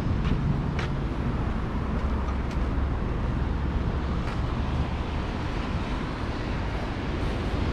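A car driving: steady low engine and road rumble, with a few faint clicks.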